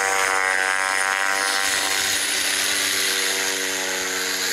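Cessna Grand Caravan single-engine turboprop rolling past close by. Its propeller drone drops in pitch over the first two seconds as it goes by, then holds steady over a constant hiss.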